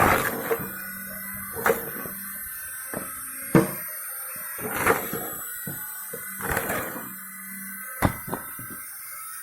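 Firewood being split: a string of irregular sharp knocks and cracks, the loudest about three and a half seconds in, over a steady high whine.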